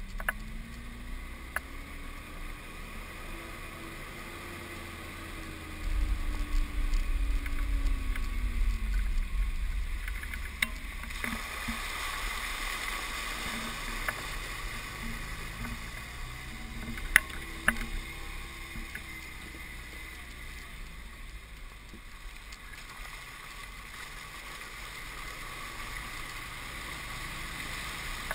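Off-road 4x4 engine running at crawling speed with its tyres rolling through mud and puddles, heard from outside the vehicle. The engine pitch rises and falls slowly a couple of times, the rumble grows louder for a few seconds about six seconds in, and a few sharp knocks come a little past the middle.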